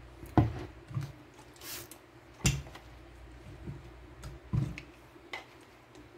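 Plastic measuring cups and a stirring stick being handled and set down on a countertop: a handful of sharp knocks and taps, loudest about half a second in and again about two and a half seconds in, with a brief hiss in between.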